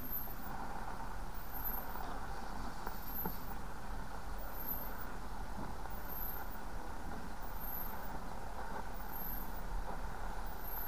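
Yaesu FRG-7 shortwave receiver's loudspeaker giving a steady hiss of static as the main tuning dial is turned, with no station coming through. The owner suspects a fault in the receiver's front end.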